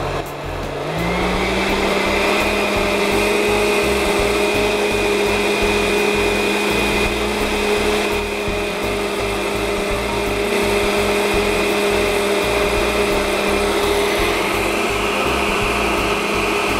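Countertop blender running steadily, liquefying soaked lentils and water into a creamy purée. Its motor picks up speed about a second in, then holds one steady pitch.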